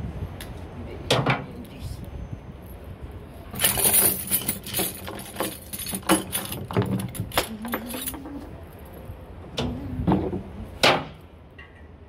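Sharp metallic clinks and knocks from hand tools and the condenser fan blade being fitted on the fan motor's shaft. A dense run of clinks comes about four seconds in, and a single loud knock comes near the end.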